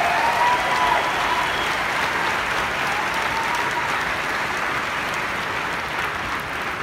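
A large crowd applauding, with a few voices calling out in the first second; the clapping tapers off slightly toward the end.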